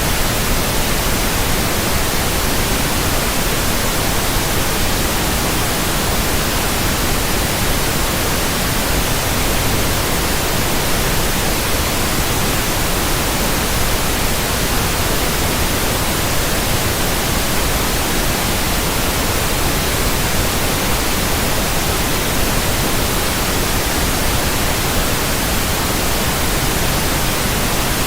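Steady static hiss, an even rushing noise spread across all pitches and held at one loud level throughout.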